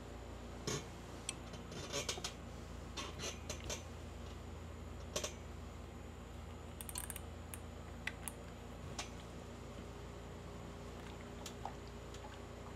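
Irregular light clicks and taps from ironing clothes, bunched in the first part and sparser later, over a steady low hum.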